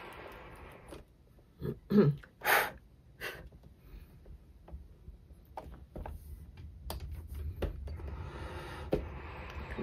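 A sharp gasp and a loud breathy burst from the player about two seconds in, followed by quiet clicks and knocks of the piano accordion's keys and buttons being handled. Soft accordion sound is heard at the start and again near the end.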